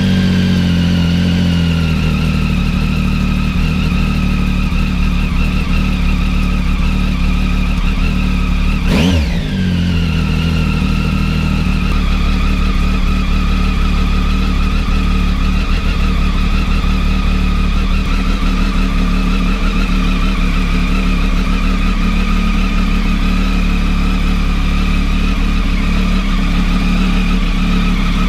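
Triumph Tiger 800's three-cylinder engine idling steadily just after being started, with one quick rev blip about nine seconds in that rises and falls back to idle.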